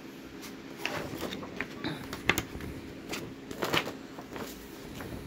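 Large paper poster being handled and folded, with scattered crackles and rustles of the paper, the loudest a little after two seconds and again near four seconds in.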